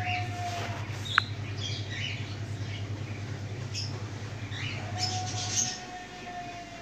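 Birds chirping in short, scattered calls over a steady low hum; the hum cuts out near the end.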